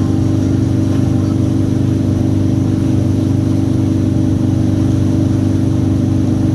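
Surf boat's engine running at a steady speed, a constant low drone with no change in pitch.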